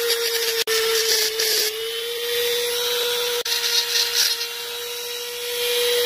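Handheld Dremel-type rotary tool running at high speed with a steady whine, its small bit grinding out a hole in an aluminum throttle housing; the grinding is heaviest at the start and turns patchy, then drops away while the motor keeps spinning, as the bit snaps off.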